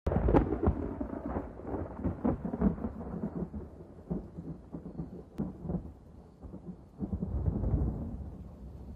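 Thunder rumbling, with irregular crackles. It is loudest at the start, dies down around six seconds in, then swells into a second rumble about seven seconds in.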